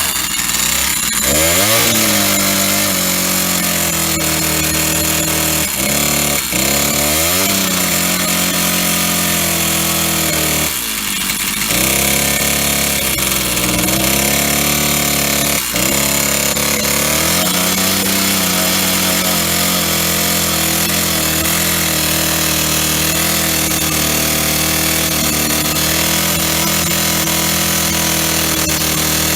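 Old Stihl 08S chainsaw's single-cylinder two-stroke engine running, its pitch dropping and climbing back several times before settling to a steady run from about eighteen seconds in.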